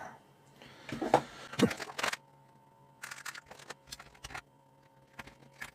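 Light clicks and taps of small electronic parts and meter test leads being handled on a workbench, in a few short bunches, with a faint steady tone behind them.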